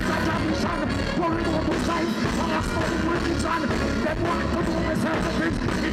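A live reggae band playing with a heavy, steady bass while a male vocalist sings into a microphone over it.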